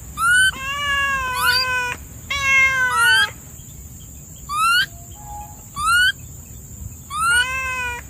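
An animal calling repeatedly in high, meow-like cries: about six calls, two to three of them long and sliding in pitch, the others short rising chirps.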